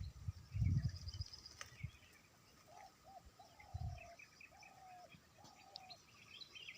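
Wild birds calling and singing: scattered high chirps throughout, with a run of five low, slightly falling notes in the second half. A few low thumps sound near the start, loudest about a second in.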